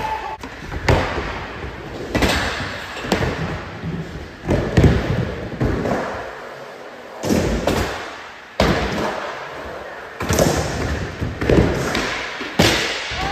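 Skateboards clacking and slapping: a string of irregular sharp knocks from tails popping, boards landing and hitting the ground, with wheels rolling on wood and concrete between them.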